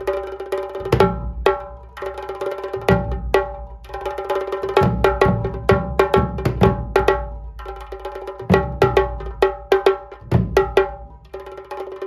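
Tasha kettle drum beaten with two thin sticks in fast rolls, its tight head ringing at one bright, metallic pitch, the rolls broken by short pauses. A dhol adds deep beats every second or two underneath: a Muharram dhol-tasha rhythm.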